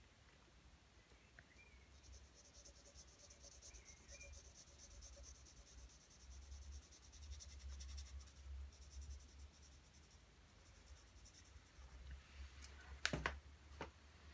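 Faint scratching of a graphite pencil on drawing paper in quick, repeated strokes, as shading is hatched in, with two sharp taps near the end.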